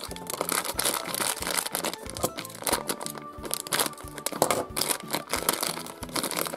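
Crinkling and rustling of a thin plastic wrapper as a toy is unwrapped by hand, over background music with a steady beat.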